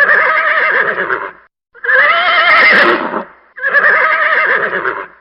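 A horse whinnying three times in a row, each call about a second and a half long with a quavering pitch.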